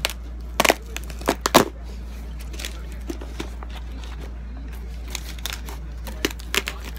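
A cardboard shipping box being torn open by hand: a series of sharp rips and crinkles of tape and packing paper, the loudest in a cluster about a second in and more near the end, over a steady low hum.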